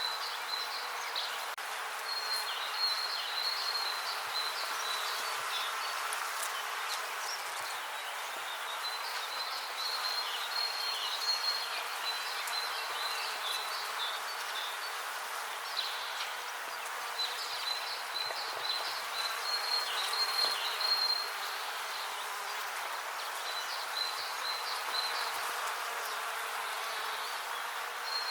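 Many bees buzzing in a steady, even hum. High chirping comes and goes over it in spells of a few seconds.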